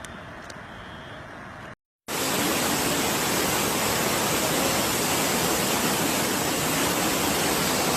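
Rushing floodwater: a quieter wash with a few faint clicks, then, after a cut about two seconds in, a loud, steady rush of water.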